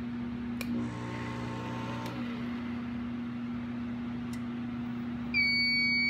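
Steady hum of a heat gun running on low, then about five seconds in a fire alarm system's piezo sounder starts a loud, steady, high-pitched tone: a heat detector has tripped and the panel has gone into alarm.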